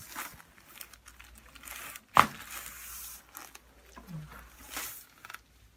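Crinkling and rustling of a chiropractic table's paper cover as a patient turns over onto their back, with one sharp snap about two seconds in.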